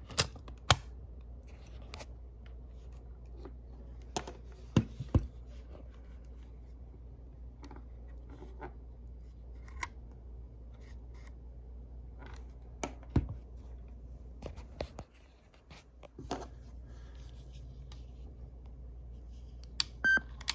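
Sharp plastic clicks and taps from handling a Sony WM-EX610 cassette Walkman as a cassette is loaded and the lid and controls are worked, over a low steady hum. A short electronic beep comes near the end.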